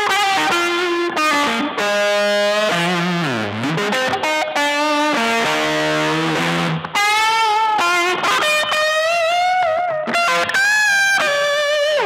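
Strat-style electric guitar played through a board of effects pedals: a freestyle lead of long sustained notes with wide vibrato, with a slow pitch dip and return about three and a half seconds in.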